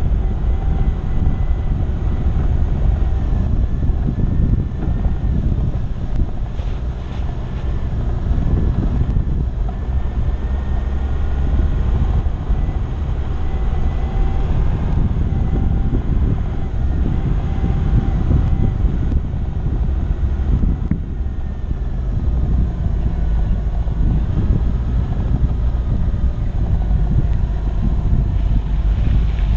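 A 4x4 driving over a dirt track, heard from a camera on its hood: a steady low rumble of the vehicle and wind on the microphone, with a faint whine that wavers up and down.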